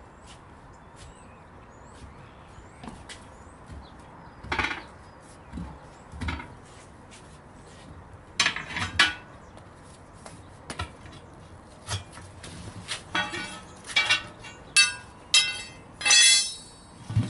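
Metal hand tools clinking and clanking against metal: scattered light knocks at first, then a run of louder ringing strikes in the last few seconds.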